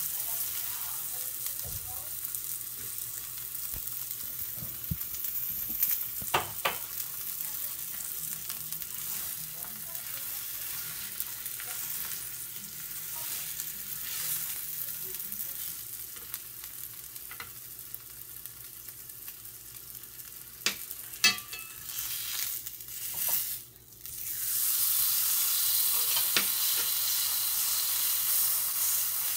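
Dry-aged ribeye steak sizzling as it sears in a hot cast iron skillet, a steady high frying hiss. A few sharp clicks come from wooden chopsticks knocking the pan as the steak is turned. The sizzle grows louder after a brief dip about 24 seconds in, as the steak is flipped.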